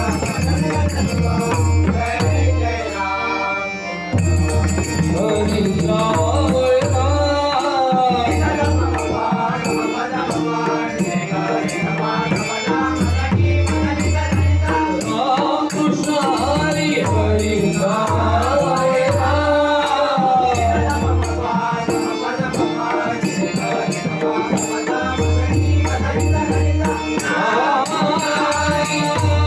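A devotional bhajan being sung, with a lead voice carrying a melody over a hand drum beating a steady rhythm and small cymbals chinking throughout.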